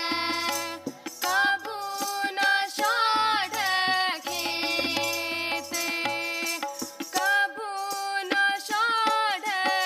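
Gurbani keertan: a shabad sung to a harmonium, the reed tones held steadily under the voice, with tabla playing a steady rhythm and the bass drum giving low booming strokes.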